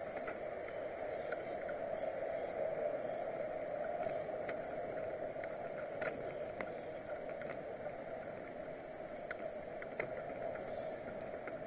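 Steady rushing ride noise of a bicycle rolling along a paved road, picked up by a camera mounted on the bike, with occasional small clicks and rattles.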